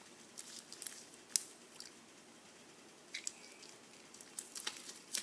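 Freshly mixed glue-and-Tide slime, still a little sticky, being squeezed and pulled by hand: faint, scattered squishing clicks. The sharpest comes about a second and a half in, and there are a few quick ones near the end.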